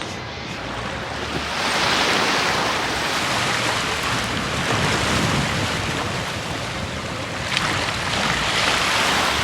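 Ocean surf breaking and washing up the beach, swelling loud about a second and a half in and again near the end, with wind on the microphone.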